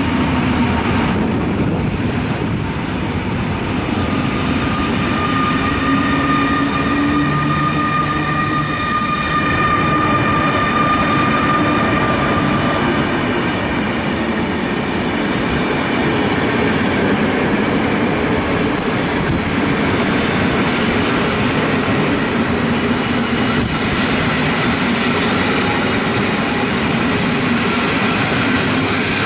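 Intercity passenger coaches rolling past along the platform as the train pulls into the station: a steady loud rumble of wheels on rail with thin, high squealing tones from wheels and brakes.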